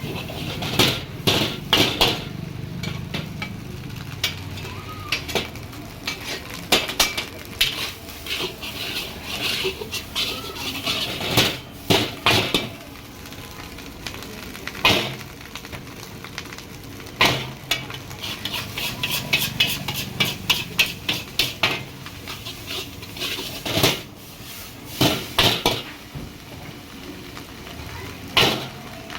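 A metal ladle clanking and scraping against a wok while stir-frying rice, with irregular sharp knocks over a steady sizzle.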